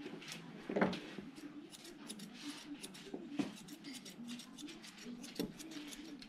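Grooming scissors snipping through a dog's double coat in quick, irregular cuts, the loudest snip about a second in.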